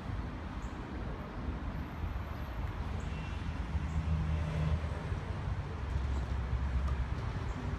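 Heavy truck's diesel engine idling, a low steady rumble.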